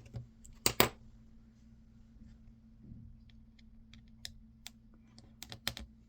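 Sharp clicks and light ticks from handling a precision screwdriver bit kit: two loud clicks just under a second in, then scattered small ticks that bunch together near the end, over a faint steady hum.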